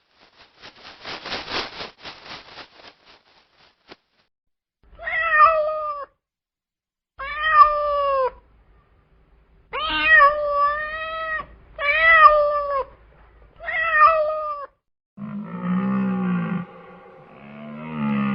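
A cat meowing five times in a row, each meow a separate rising-and-falling call. Before them comes a quick rasping rattle of a few seconds, and near the end a much deeper, drawn-out call takes over.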